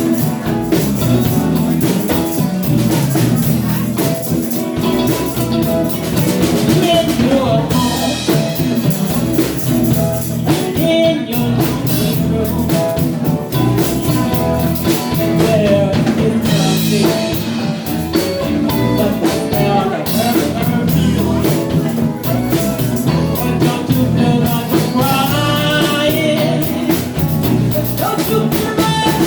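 Band music playing steadily, with a drum kit and guitar.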